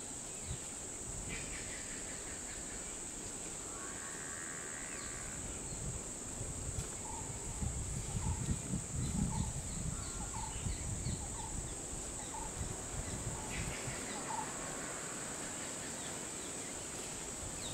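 Tropical forest ambience: a steady high-pitched insect drone, with birds calling over it, one of them repeating a short note every second or so through the middle. Some low rustling sounds in the middle as well.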